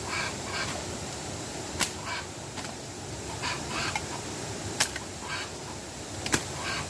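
Three sharp clicks or knocks a few seconds apart over a steady low rushing background, with short scratchy noises in between.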